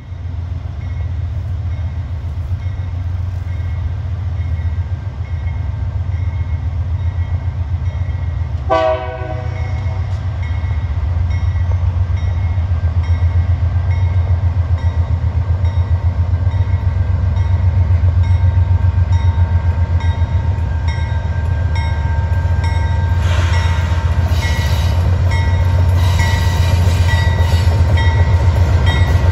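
Diesel freight locomotives approaching with a steady low engine rumble that grows louder, and one short horn blast about nine seconds in. Near the end, wheel and rail noise with a thin ringing tone joins as the train draws level.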